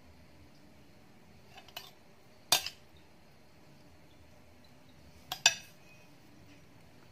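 A metal spoon clinking against a dish while scooping ground beef filling. A faint tap comes first, then a sharp clink, and a few seconds later a louder double clink.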